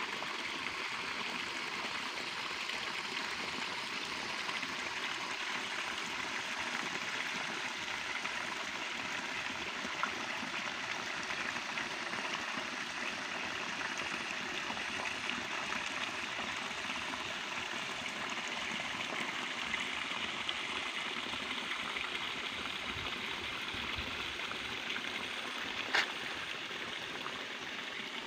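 Steady rushing of running water, even throughout, with a single sharp click near the end.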